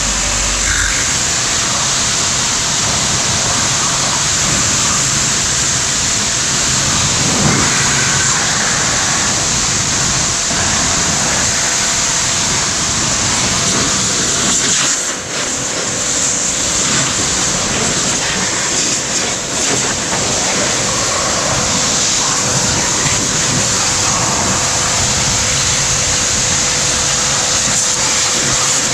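Yodha YD 120 electric pressure washer running: a steady motor hum under a loud, even hiss, dipping briefly about halfway through.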